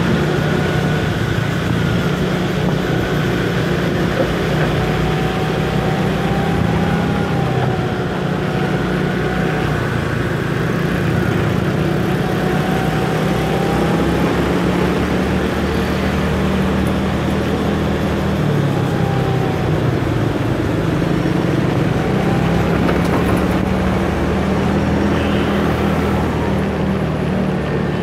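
Motor scooter's engine running while riding in city traffic, with a whine that rises and falls several times as the throttle changes, over a steady rush of road noise.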